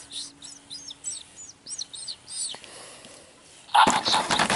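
Electronic toy bird chirping: a run of about nine quick, high, swooping chirps. Near the end comes a short burst of loud rustling and handling noise.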